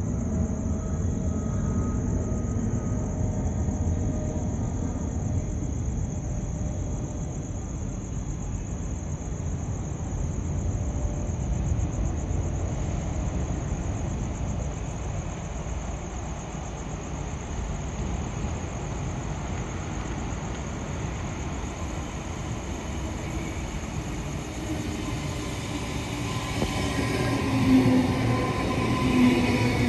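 Queensland Rail electric passenger train running on the rails with a steady low rumble. Higher ringing tones build up over the last few seconds.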